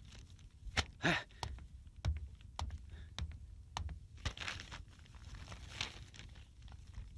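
Light footsteps and scattered knocks, irregularly spaced, with a few short rustles of paper as a document is handed over and handled on a wooden bench.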